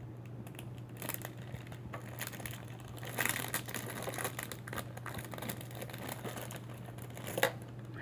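A small plastic blind bag being crinkled and torn open by hand, with irregular crackling that gets louder about three seconds in and a sharp crinkle near the end. A steady low hum runs underneath.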